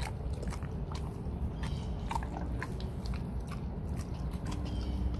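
A dog chewing and biting into pieces of raw meat: irregular smacking clicks of its jaws.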